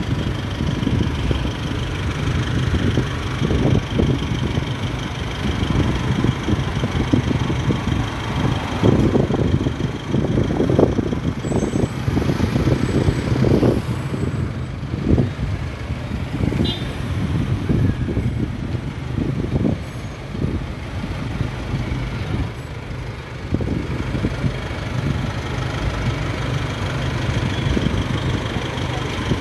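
Street traffic: cars and pickup trucks driving slowly past close by, a steady low engine hum under uneven rumbling.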